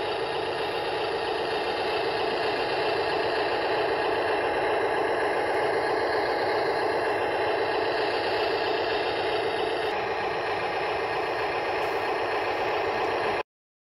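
Huina 583 radio-controlled wheel loader running: a steady mechanical noise that cuts off abruptly near the end.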